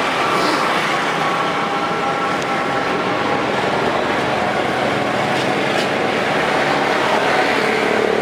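Steady road traffic noise, with vehicle engines running and a continuous rush of passing traffic.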